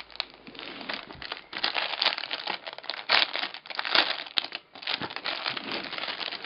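Thin white plastic mailer bag crinkling and rustling in uneven bursts as it is torn open by hand and an item is pulled out of it.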